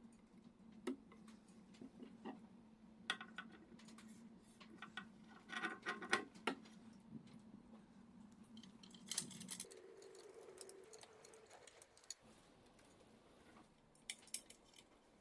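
Faint scattered clicks and small rattles of cable connectors and small metal parts being handled and plugged in while a 3D printer's frame is assembled. A faint steady hum runs underneath, turns to a higher tone near the ten-second mark and stops about two seconds later.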